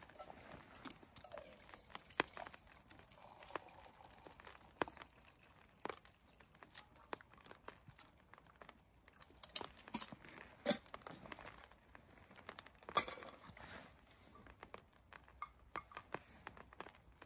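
Small wood kindling fire crackling in a steel stove, with irregular sharp snaps, and light clinks of metal cookware being handled.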